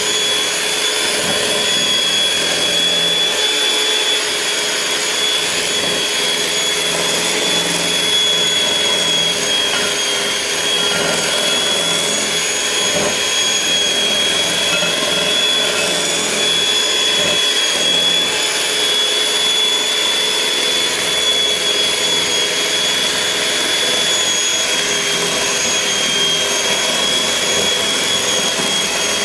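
Electric mixer running steadily as it beats cake batter, a constant motor whine over a rushing noise.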